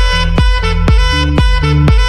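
Upbeat intro jingle music: a steady beat of about two strokes a second under a pitched melody.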